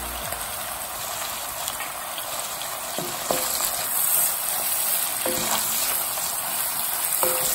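Shrimp, onions and freshly added ground spices sizzling in hot oil in a wok while a wooden spatula stirs them, scraping the pan now and then. The spices are being fried into the masala, and the stirring grows busier about halfway through.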